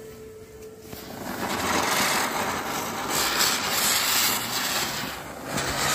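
A big ground chakkar (ground spinner firework) spinning, its shower of sparks giving a steady, loud fizzing hiss that builds over the first second or two, dips briefly near the end and then flares again.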